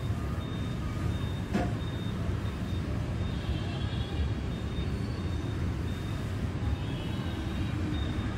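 Steady rumble of city street traffic, mostly motorbikes and cars on wet roads, heard from high above. There is a short click about one and a half seconds in.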